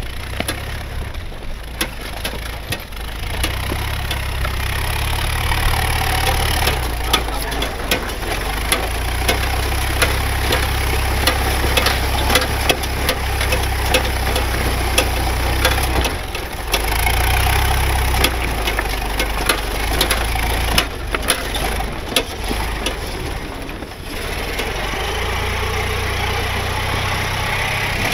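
A vehicle engine running at low speed as it crawls over rough off-road ground, with frequent knocks, clunks and rattles from the body and running gear.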